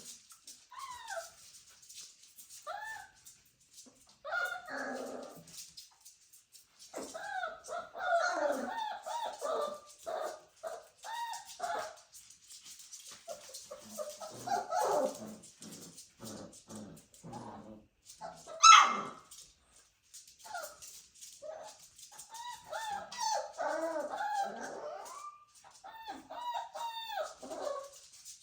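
A litter of dachshund puppies whimpering and yipping: many short high calls that bend up and down in pitch, with one much louder yelp about two-thirds of the way through.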